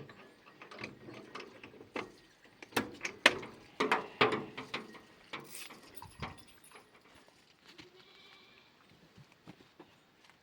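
Small livestock bleating, over a run of sharp knocks and clatters through the first half; a faint drawn-out call comes about eight seconds in.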